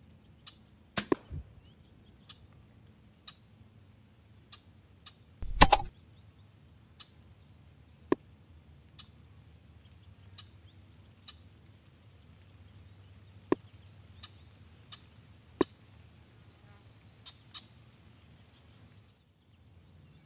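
Air rifle shots: the sharp crack of a pre-charged pneumatic air rifle firing about a second in, a louder, longer crack near six seconds, which fits the loud smack of a hollow-point pellet hitting a squirrel, then several more single sharp clicks. Birds chirp faintly throughout.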